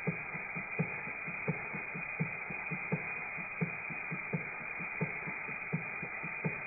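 Model three-cylinder radial steam/air engine with a disc valve running steadily: a continuous hiss with soft, even exhaust puffs about four a second, every third one louder.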